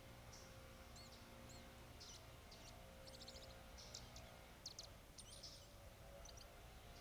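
Faint, scattered bird chirps and short calls, high-pitched and brief, over a quiet steady hum.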